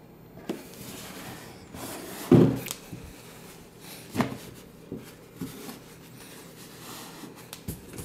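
Cardboard shoebox being handled and its lid lifted off: a series of knocks and scrapes, the loudest a thump about two seconds in and another about four seconds in.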